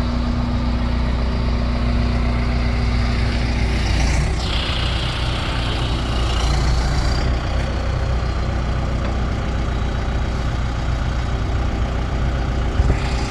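John Deere 310K EP backhoe's diesel engine running steadily, with a higher whine that rises and falls a few seconds in.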